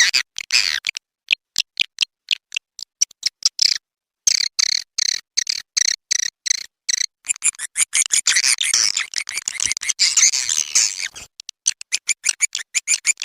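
Swiftlet lure call recording: quick trains of short, high chirps from edible-nest swiftlets, about five a second, with a dense twittering stretch in the middle. It is played to draw swiftlets into a nesting house.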